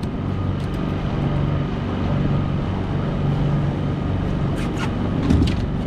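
Boat motor running steadily with a low, even hum, with a few light clicks near the end.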